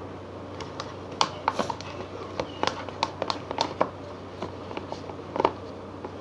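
A plastic stirring stick clicking and tapping irregularly against the sides of a plastic cup as slime is stirred, over a low steady hum.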